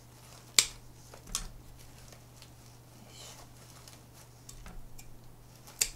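Scissors snipping at the base of a staghorn fern to separate a pup: a sharp snip about half a second in, a softer one about a second later, and another just before the end, with faint rustling of roots and moss between.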